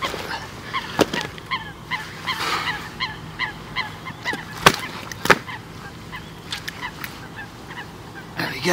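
Geese honking in a quick run of calls, two or three a second, dying away after about seven seconds, with a few sharp clicks in among them.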